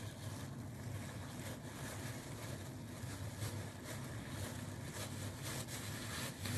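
Steady low background hum, with faint soft handling sounds as a sushi roll is rolled up by hand.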